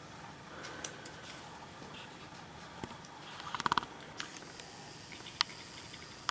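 A kitten's paws and claws scuffing and scratching on carpet and a hand as it plays: quiet scattered patters and soft clicks, with a quick run of clicks a little past halfway and a few sharper ticks near the end.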